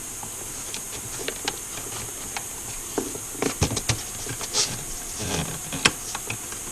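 Hands working plastic parts and wiring into a ventilation unit: scattered light clicks, taps and knocks, busier in the second half, over a steady high hiss.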